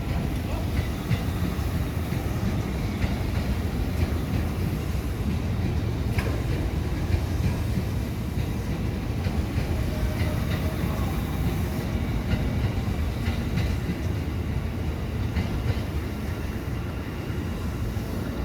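Old train moving on a shunting run: a steady low rumble with scattered clicks of the wheels on the rails.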